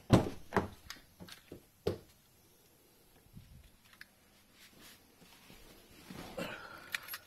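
A handful of clunks and knocks, the loudest right at the start, as a Ford Mustang's driver's door is opened and someone climbs into the seat, followed by quieter rustling and a few soft knocks near the end.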